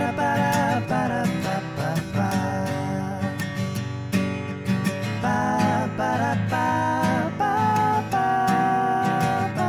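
Background music led by strummed acoustic guitar, with a melody line over it.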